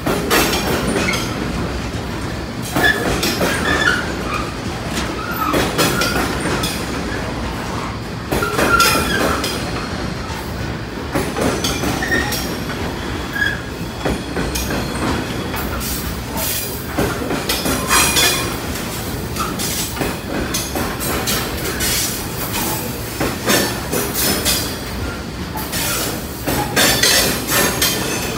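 Freight train wagons rolling past in a steady rumble, their wheels clacking over rail joints again and again, with brief squeals from the wheels now and then.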